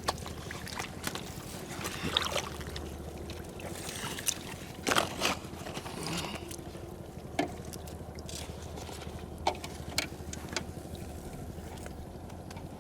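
Water splashing and sloshing in short, irregular strikes over a steady low rumble.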